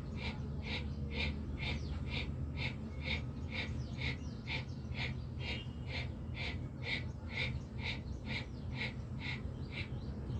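Bhastrika pranayama bellows breathing: rapid, forceful breaths in and out through the nose in an even rhythm of about three strokes a second.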